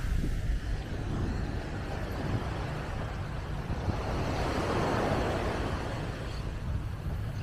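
Surf washing onto the beach, swelling louder about halfway through, with wind rumbling on the microphone.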